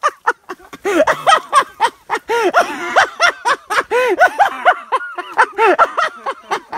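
A person laughing hard: a long, unbroken run of quick, high-pitched 'ha' bursts, several a second.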